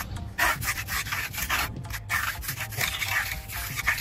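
Steel finishing trowel rubbing over wet, freshly poured concrete in several sweeping strokes, gliding smoothly across the surface.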